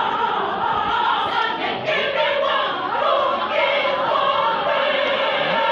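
A large mixed choir of men's and women's voices singing together, holding long notes.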